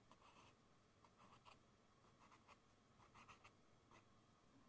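Very faint, quick strokes of a paintbrush on canvas, a short stroke every half second or so, against near silence.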